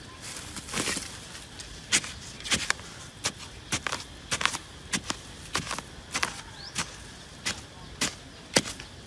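A hand digging tool repeatedly striking and prying into hard, dry earth to open a burrow: sharp, uneven knocks and scrapes, about two a second.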